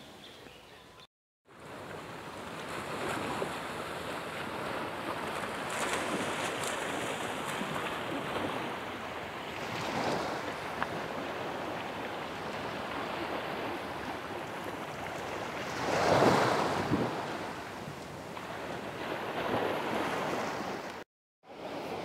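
Small waves of a calm sea washing onto a sandy beach: a steady surf hiss that swells as individual waves come in, the biggest about 16 seconds in.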